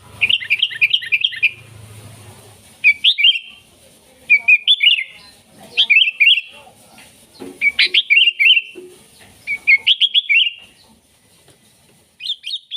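Sooty-headed bulbul (kutilang) singing loudly: about seven short phrases of quick, bubbly notes, each lasting around a second, with short pauses between them.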